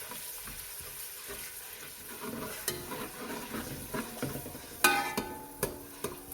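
Garlic, ginger and green chilli paste sizzling in hot oil as it is stirred and fried. A spoon knocks and clinks against the pot several times in the second half, one ringing clink loudest about five seconds in.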